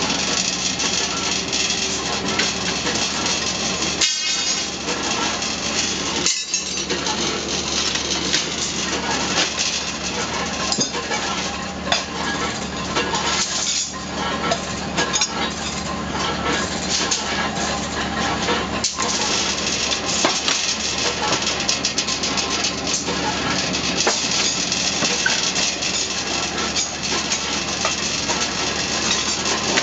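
Automatic rebar bending machine running with a steady hum, while steel reinforcing bars clank and clink against its bending disc and pins as they are loaded and bent.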